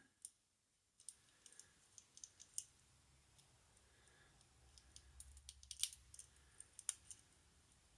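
Faint, sparse metallic clicks and ticks of a lock pick and tension tool working the levers inside a Squire 660 four-lever padlock.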